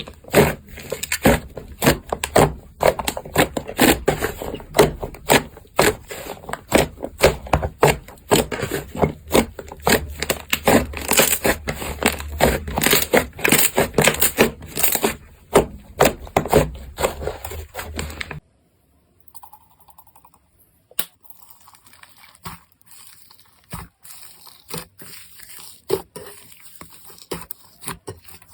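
Slime being squeezed and pressed by hand, giving dense crackling and popping clicks. About two-thirds of the way in it cuts off suddenly to a much quieter stretch of scattered, softer clicks.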